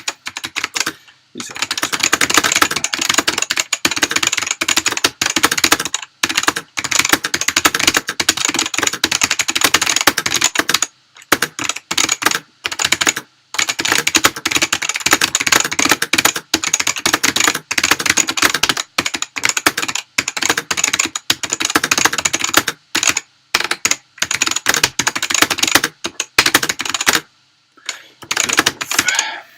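Fast touch typing at about 80 words per minute on a Matias Tactile Pro mechanical keyboard with clicky Alps switches: a rapid, unbroken clatter of keystrokes, stopping for a few short pauses, the longest near the end.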